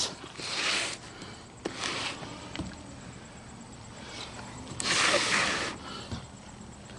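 Three short rustling, scraping sounds, the last and loudest about five seconds in.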